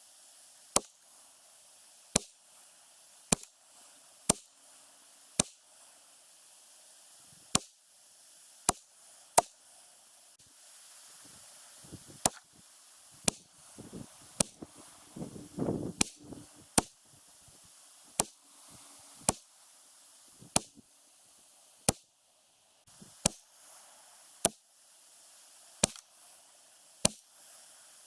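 Ruger 10/22 semi-automatic .22 LR rifle firing about twenty single shots, roughly one a second, as a test group is shot. Midway there is a burst of handling noise.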